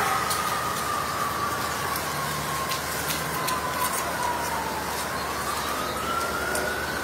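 Emergency-vehicle siren wailing, its pitch sliding slowly down and then back up about five seconds in, over a steady rushing noise with faint scattered clicks.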